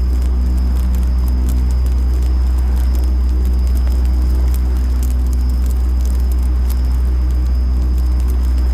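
Campfire crackling with scattered sharp pops, over a steady deep rumble and a thin, steady high-pitched ringing of bell crickets (suzumushi).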